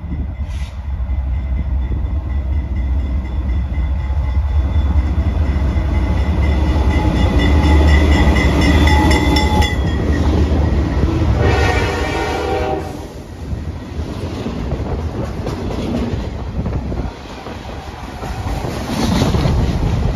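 Pan Am Railways freight train's diesel locomotives running past, with a steady low engine rumble, sounding the horn in a long blast that cuts off about ten seconds in and a shorter blast a moment later. After the locomotives pass, the freight cars roll by with a clickety-clack of wheels on rail joints.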